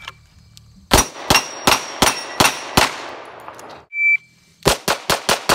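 Beretta 92 Elite LTT 9mm pistol fired in two rapid strings: six shots about a third of a second apart starting about a second in, then a faster string of about five shots near the end. A short beep comes just before each string.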